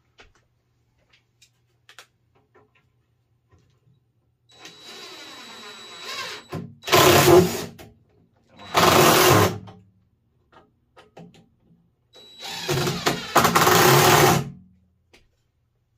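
Power drill running in three bursts with a steady high whine, the first and last starting slowly and then going to full speed, the last the longest.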